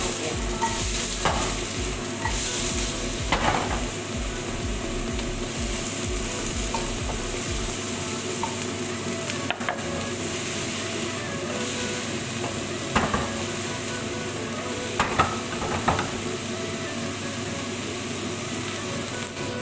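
Cubed zucchini sizzling as it fries in a pan, a steady hiss, with a few sharp knocks scattered through it.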